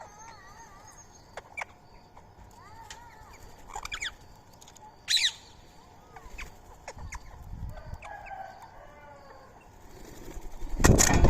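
Birds chirping and calling, with a sharp shrill screech about five seconds in and a loud burst of wing flapping near the end.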